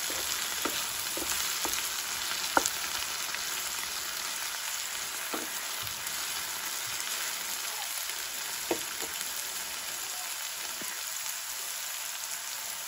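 Broccoli, onion and tomato sizzling in hot oil in a frying pan as a wooden spatula stirs them. The spatula knocks against the pan a few times, most sharply about two and a half seconds in.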